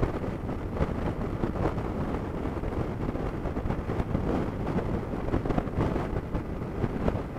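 Wind buffeting the microphone of a motorcycle-mounted camera at road speed, a steady rushing flutter with the motorcycle's running and road noise underneath.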